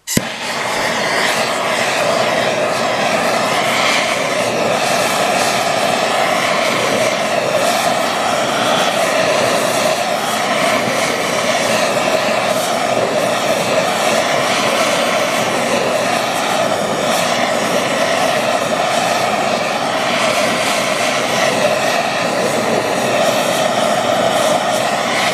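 TS-8000 torch burning MAP gas, lit at the start and then burning with a steady loud rushing noise. The flame is heating an aluminum boat propeller up to brazing temperature.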